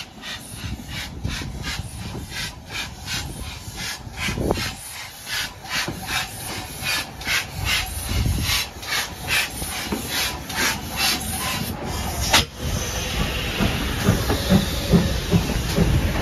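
GWR Manor-class 4-6-0 steam locomotive 7812 running slowly along a platform: a steady rhythm of about three beats a second that stops abruptly about three-quarters of the way through. Then a steady hiss of steam and some low clatter as the engine draws alongside.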